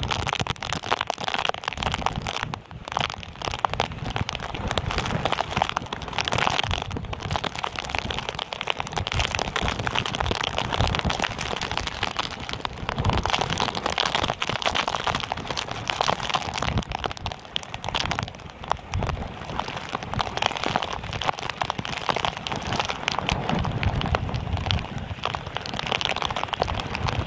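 Heavy storm surf from a cyclone-whipped sea breaking on the shore: a continuous noisy roar of crashing waves, with gusty wind rumbling and crackling on the microphone.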